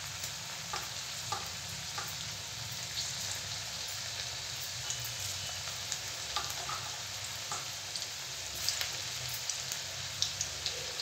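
Besan-battered okra pakoras deep-frying in hot oil in a kadhai: a steady sizzle with scattered small pops and crackles.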